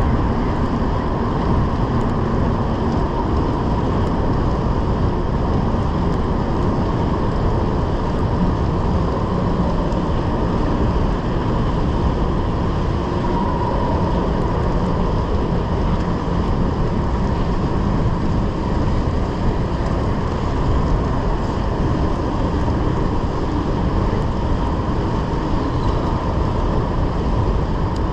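Steady rushing noise of a Brompton folding bike being ridden at speed through a road tunnel: wind on the microphone and tyres rolling on the asphalt, with a faint steady whine underneath.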